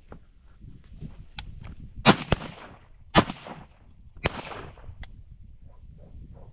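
A quick volley of shotgun shots at ducks, each a sharp crack with a short ringing tail. Two shots come almost together about two seconds in, then two more about a second apart.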